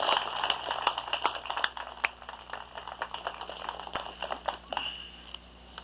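A small audience applauding, a patter of individual hand claps that thins out and dies away after about five seconds.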